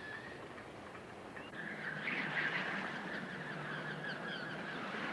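A flock of birds calling, a busy chatter of overlapping calls that swells in about a second and a half in, with short higher chirps, over a steady background hiss.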